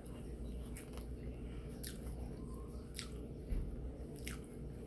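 A person chewing a sausage grinder sandwich close to the microphone, with a few wet mouth clicks and smacks, over a low steady hum.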